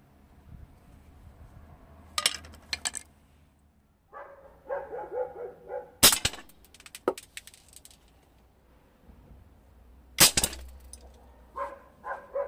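Airsoft gun shots, each a sharp crack as the BB strikes a wooden spatula: one about six seconds in with a 0.43 g BB and one about four seconds later with a 0.90 g steel BB. A dog barks in between the shots and again near the end, and a few short clicks come about two seconds in.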